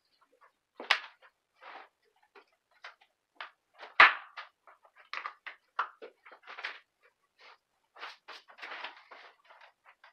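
Electronics and cables being unplugged and handled: scattered rustles, clatters and small knocks, the loudest a sharp knock about four seconds in.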